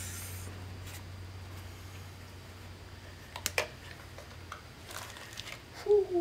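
Paper and plastic packaging rustling and crinkling as a Manley connecting rod is unwrapped by hand, with a couple of sharp clicks about three and a half seconds in. Near the end a man starts humming a steady note, the loudest sound here.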